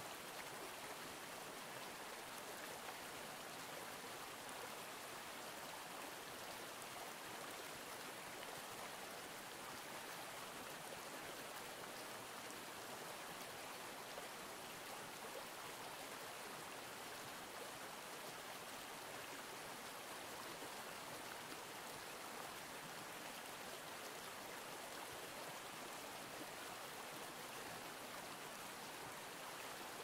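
Steady rush of a flowing stream, an even water sound that does not change.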